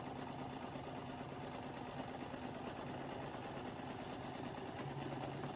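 Sewing machine running at a steady speed, stitching a seam shut in a piece of fabric.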